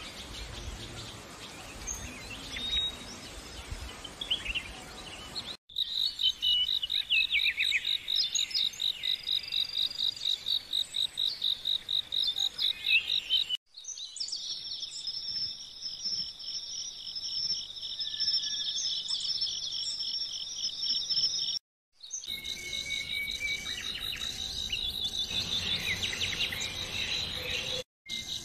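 Birds chirping and insects trilling, with several abrupt breaks. After the first break comes a fast, pulsing high trill; after the second, a steady high buzzing trill; near the end, a softer trill with bird calls.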